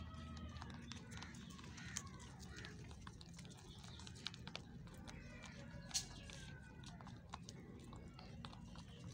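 Several rabbits crunching dry pelleted feed: a faint, irregular patter of small crisp clicks, with one sharper click about six seconds in.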